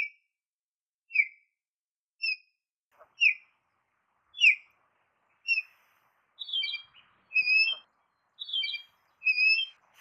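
Canada goose goslings peeping: a regular series of short, high, downward-slurred peeps about once a second. From about six and a half seconds in, a higher note sounds alongside some of the peeps.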